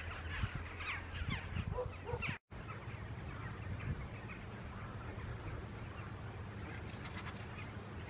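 Many quick bird calls over a low steady rumble, broken by a brief gap in the sound about two and a half seconds in. After the gap the rumble goes on with only a few faint calls.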